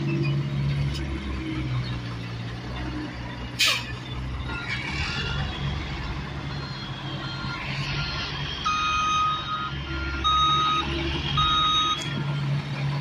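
Diesel engine of a loaded dump truck running at low speed, with a backup alarm beeping about once a second, faint at first and loud in the last few seconds. A single sharp click about three and a half seconds in.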